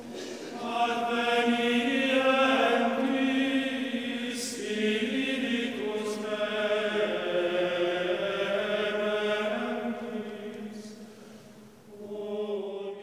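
A choir of men's and boys' voices singing a slow sacred chant in long, held notes. The singing fades about eleven seconds in, and a new phrase starts just after.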